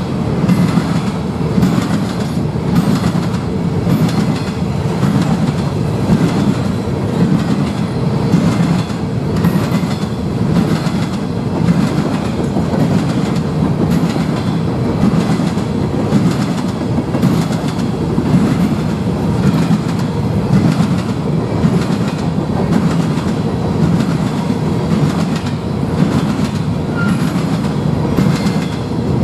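Norfolk Southern freight train of covered hopper cars rolling past at speed: steady wheel and rail noise, with a regular clickety-clack of the wheels running over the rail joints.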